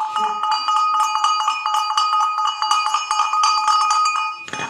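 Hand-shaken brass cowbell ringing, its clapper striking rapidly over a steady two-note ring, then stopping abruptly near the end.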